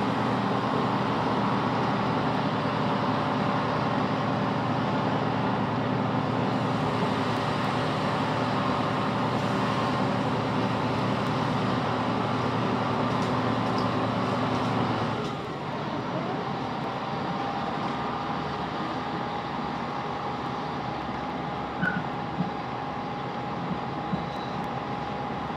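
Class 165 diesel multiple unit heard from inside the carriage: the underfloor diesel engine runs steadily under power over rail running noise. About fifteen seconds in, the engine note drops away and it goes quieter, leaving a steady whine over the running noise.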